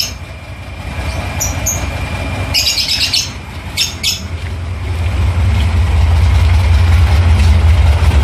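VW Safari's 1600 cc air-cooled flat-four engine idling while warming up, a low rumble that grows louder about five seconds in. Birds chirp several times around the middle.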